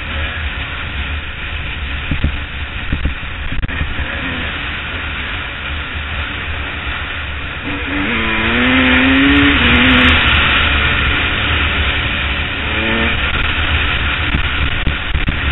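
Honda CR250 two-stroke single-cylinder dirt bike engine running while riding a dirt trail, under heavy wind rush on the camera. About eight seconds in the wind and engine get louder and the engine note rises as the throttle opens, with another short rise near the end.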